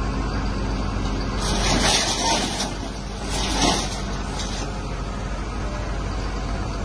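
Hidromek HMK220 excavator's diesel engine running steadily under hydraulic load while its VTN CI200 scrap shear works steel, with two loud harsh hissing, scraping bursts about a second and a half and three seconds in.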